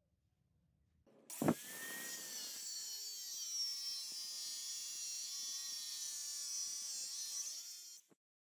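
Angle grinder with a thin cut-off disc starting up about a second in and cutting through a metal block, with a short sharp knock just after it starts, the loudest moment. It then gives a steady high-pitched screech and stops suddenly near the end.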